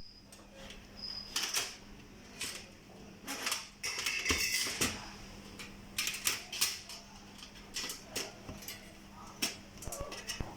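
Irregular clicks and clacks, as of hard parts being handled or knocked together, over a faint steady hum.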